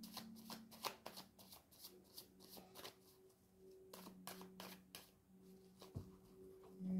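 A tarot deck being shuffled by hand: soft, quick card clicks and slaps, densest in the first three seconds, then thinning out. A single dull knock comes about six seconds in.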